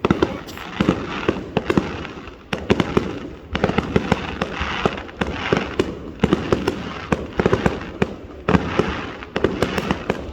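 Aerial fireworks display going off in a dense barrage: many sharp bangs a second over a running crackle, with short lulls.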